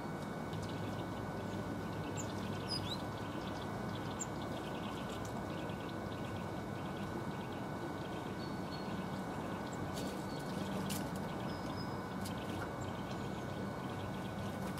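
Steady low outdoor background rumble with faint, short high-pitched bird calls now and then, and a couple of sharp clicks near the middle.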